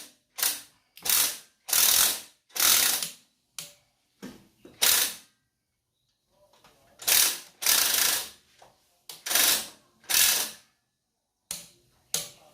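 Hand socket ratchet wrench worked in repeated short strokes on engine bolts, each swing a quick burst of pawl clicks, with a brief pause about halfway through.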